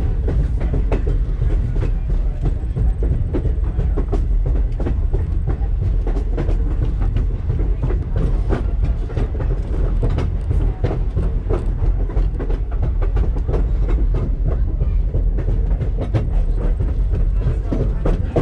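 Passenger train car rolling along the track, heard from aboard an open-sided car: a steady low rumble with many sharp clicks and knocks from the wheels and running gear.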